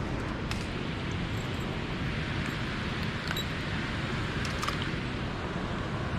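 Steady rushing water from the river below the dam, a constant even noise, with a few faint clicks over it.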